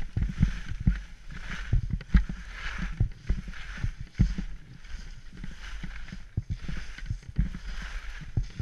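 Edges scraping and hissing over noisy snow in a run of quick downhill turns, the hiss swelling with each turn, with frequent short low thumps.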